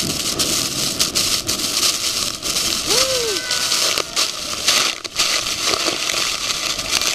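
Heavy spray and crashing water at the base of a huge waterfall: a dense, steady rush of noise, with droplets pelting the microphone in sharp crackles.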